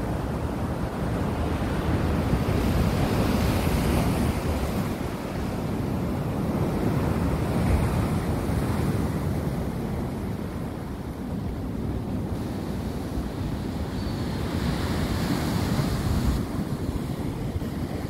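Ocean surf washing against rocks, a steady rushing wash of water, with wind buffeting the microphone.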